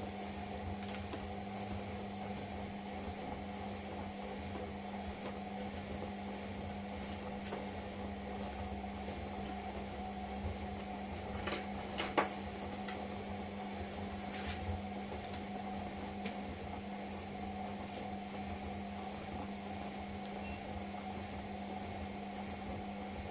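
Indesit washing machine running with a steady, even hum, with a couple of faint clicks about halfway through.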